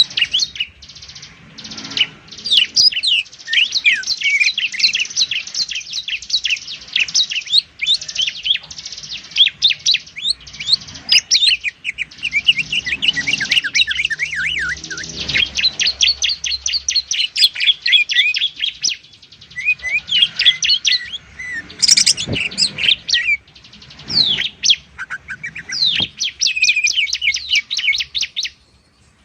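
Greater green leafbird (cucak ijo) and bar-winged prinia (ciblek) singing: a dense run of high, quick chirps and rapid-fire trills with only brief pauses.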